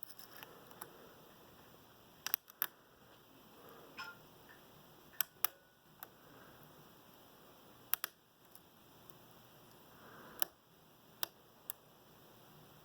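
American 1165 padlock being worked with lock-picking tools: about a dozen sharp small clicks and taps, scattered and uneven, some in quick pairs.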